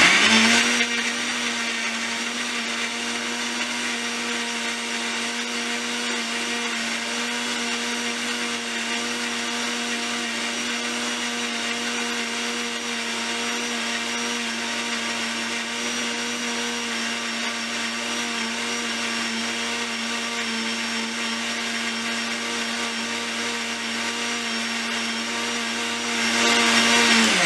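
Electric mixer grinder (mixie) running at a steady speed, its motor whining with a clear steady pitch as it grinds coriander, green chillies, onion, raw mango and curd into a chutney paste in a small stainless steel jar. It gets louder about a second before the end and then winds down as it is switched off.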